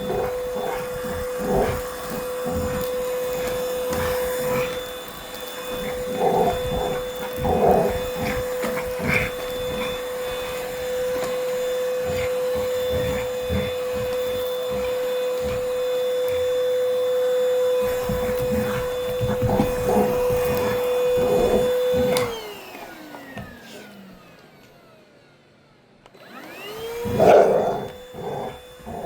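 Vacuum cleaner motor running with a steady whine, broken by short knocks and bumps. About 22 seconds in it is switched off and its whine falls as it winds down. It is switched on again near the end, its whine rising as it spins up.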